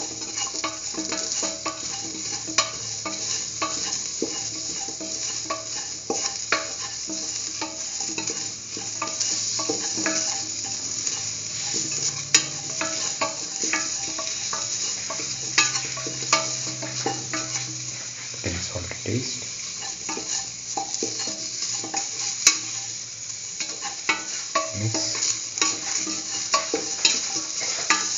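Chopped chayote, shallots and onion sizzling in oil in a stainless steel pan while being stirred. The utensil scrapes and clicks against the pan at irregular moments over a steady frying hiss.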